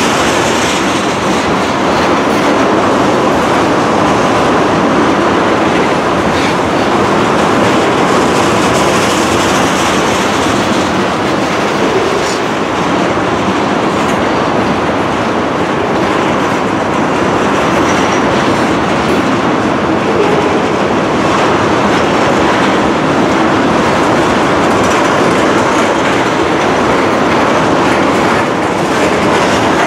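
Freight train of loaded tank cars rolling past at speed, its steel wheels running over the rails in a steady, loud clatter and rumble.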